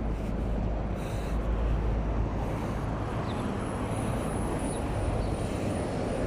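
Steady outdoor street noise: a low rumble of road traffic, heaviest in the first few seconds.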